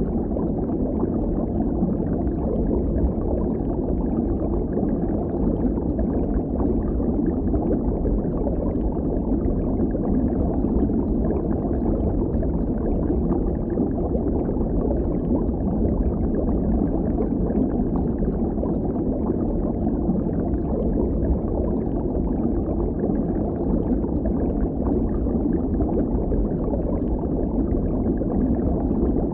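Underwater ambience as heard submerged in shallow water: a steady, muffled low rush of churning water with no bright or high sounds.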